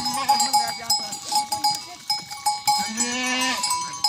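Bells on a herd of goats clinking and ringing as the animals move, with one goat bleating about three seconds in.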